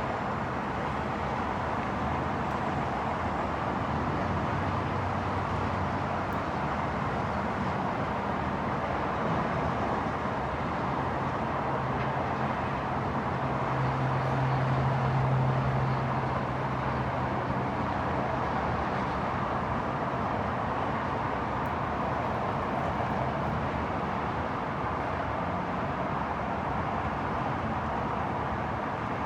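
Steady outdoor traffic noise, with a vehicle engine passing more loudly about midway.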